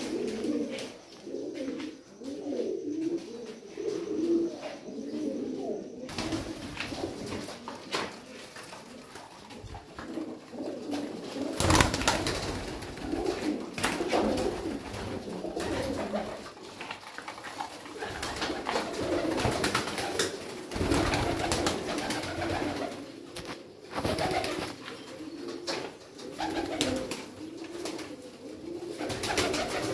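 A loft full of domestic high-flying pigeons cooing continuously, many birds overlapping in a low warbling murmur. About a third of the way in, a louder rushing noise joins the cooing.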